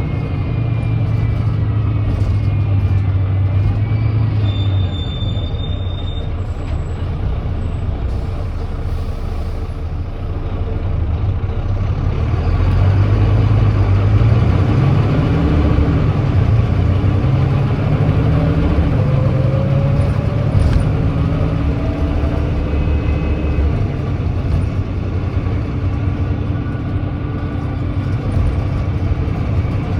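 Volvo D9B 9.3-litre diesel engine of a Volvo B9TL bus, with an exhaust leak, running at low load, then from about a third of the way in pulling away at full throttle on kickdown and shifting up through the gears of its ZF Ecolife automatic. The engine note rises and drops back with each upshift.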